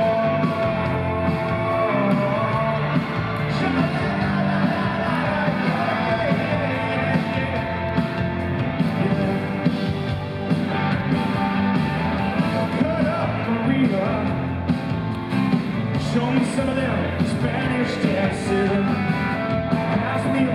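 Live rock band playing, with a male lead vocal singing over electric guitar and keyboards. The sound is continuous and loud, as heard from the audience in the venue.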